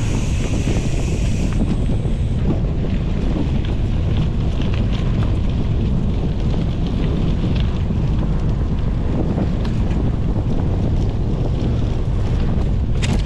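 Steady wind rushing over a GoPro's microphone as a gravel bike rides at speed, with the tyres rolling over gravel and small stones clicking here and there. A sharper click comes near the end.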